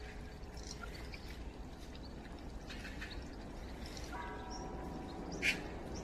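Spring water running from a spout into a stone basin, with short calls from magpies over it. The loudest is one sharp, high call about five and a half seconds in.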